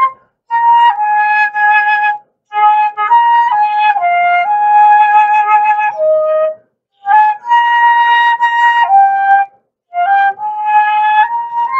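A slow solo melody on a wind instrument, held notes stepping up and down in several phrases with brief pauses between them.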